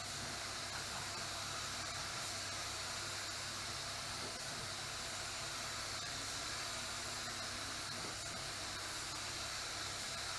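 Air-fed paint spray gun hissing steadily as sealer is sprayed, with a low steady hum underneath.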